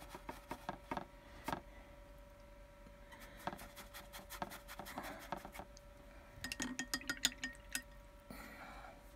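Scattered light clinks and taps, with a quick cluster of them about seven seconds in, over a faint steady hum.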